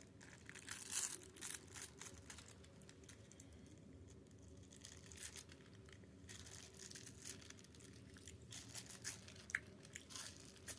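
Thin plastic film being peeled and crinkled off a microwaved frozen-meal tray, in several short bouts of crackling.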